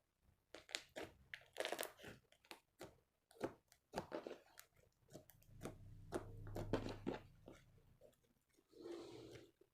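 Clear slime being squeezed and worked by hand: an irregular run of sticky pops, crackles and squelches, with a denser crackly burst near the end.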